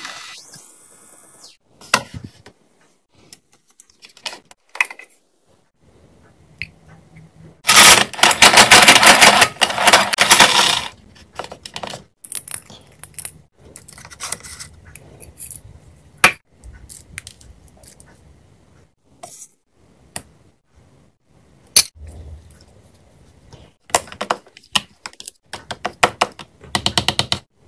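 Miniature plastic toy kitchenware being handled: scattered clicks, taps and light clatter of small plastic dishes and utensils, with a dense run of rattling clicks about eight to eleven seconds in.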